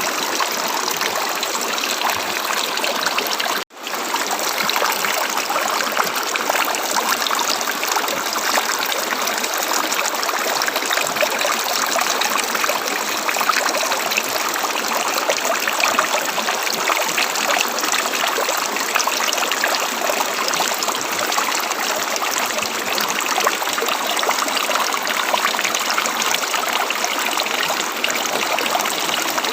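River water flowing, a steady rushing and trickling, with a momentary break about four seconds in.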